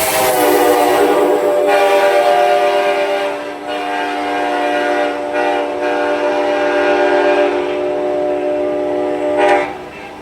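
Nathan K5LA five-chime air horn on an Amtrak F40PH locomotive, sounding one long, loud chord. Its pitch drops slightly about half a second in, then it holds steady, swells briefly and cuts off near the end.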